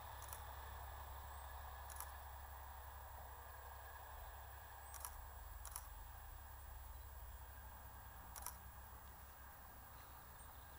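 Faint, distant rumble of a Class 67 diesel locomotive hauling a train, slowly fading as it draws away. A few sharp clicks sound over it.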